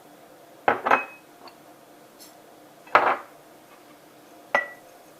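Sharp clinks and knocks of kitchenware as herbs are put into a jar: two close together near the start, one about three seconds in and one near the end, the first and last ringing briefly.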